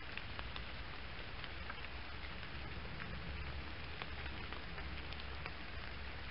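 Rain falling steadily: a continuous hiss with scattered, irregular drop ticks, over a low rumble.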